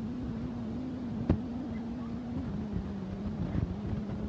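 Steady low engine hum over street noise, with one sharp click a little over a second in.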